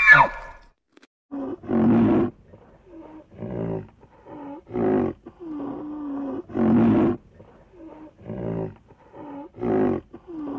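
A large animal giving a rhythmic series of short, deep calls, about one every one and a half seconds, with softer sounds between the calls.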